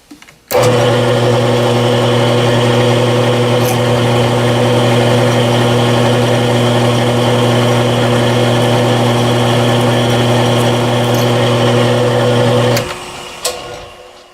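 The motor of a machine spindle running a 1/4 inch end mill as it cuts a counterbore into a metal clamp pad: a loud, steady hum that starts suddenly about half a second in and is switched off near the end, then winds down.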